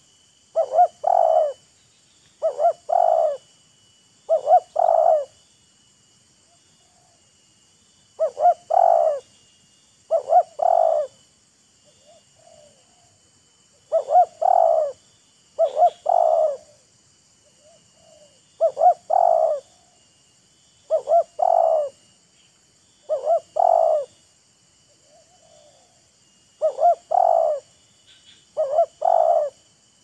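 Spotted dove cooing, a repeated phrase of a short note followed by two longer coos, mostly about every two seconds with a few longer pauses. Fainter coos answer in some of the gaps, over a steady high insect hum.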